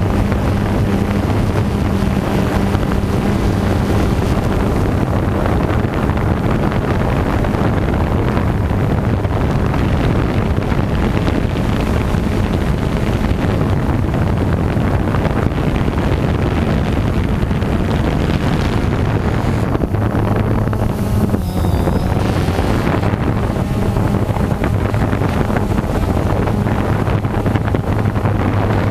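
Quadcopter camera drone's propellers and motors running steadily, a low hum recorded by the drone's own camera, with wind noise on the microphone.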